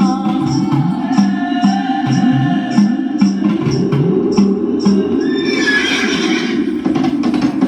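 Recorded dance backing music with a steady percussion beat and a wavering melodic line. About six seconds in, a brief high, rising sound cuts across it.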